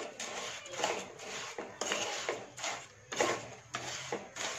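Wooden spatula stirring and scraping lumps of jaggery with a little water in a nonstick frying pan, in uneven strokes about twice a second, as the jaggery is worked to melt into syrup.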